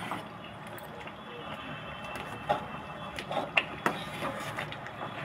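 Slotted steel spatula stirring semolina halwa as it cooks down in jaggery syrup on a high gas flame: a steady hiss of the bubbling mix, with several light knocks and scrapes of the spatula against the pan in the second half.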